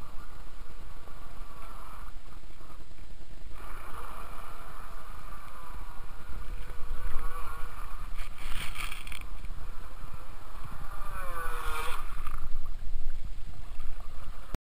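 Radio-controlled speedboat's motor whining at speed, its pitch rising and falling as it runs and turns on the water. Two louder rushes of spray and motor about eight and twelve seconds in as it passes close, the second falling in pitch as it goes by.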